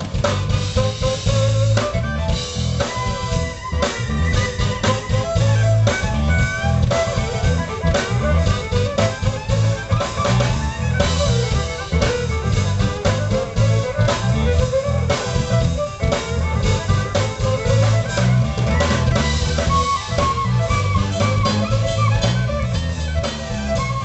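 Live band music: a violin plays the melody over a drum kit, electric bass and keyboard.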